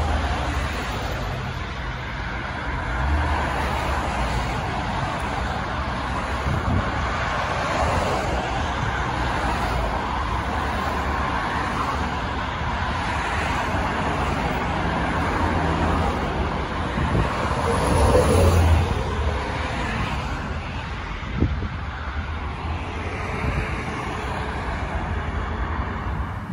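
Motorway traffic: cars, vans and trucks passing close by, a continuous rush of tyre and engine noise with a low rumble that swells as each vehicle goes past.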